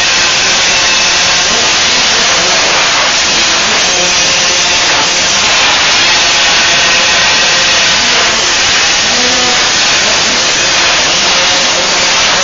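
Youth 50cc two-stroke motocross bike engines buzzing at high revs in a race, a loud, steady drone with the revs rising and falling.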